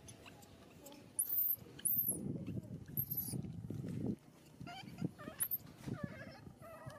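Baby macaque giving short, very shrill squeals that rise and fall, several in a row, while it is handled and tumbles against its mother, with a low scuffling rustle between about two and four seconds in. Lower, wavering whimpering cries follow in the last couple of seconds.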